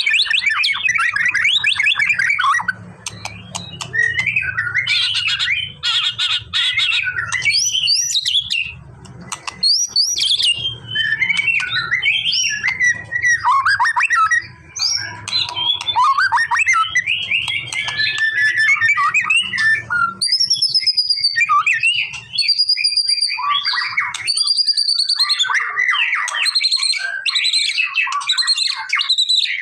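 White-rumped shama singing a long, varied song of clear whistles, rising and falling glides and fast rattling trills, with only short pauses between phrases.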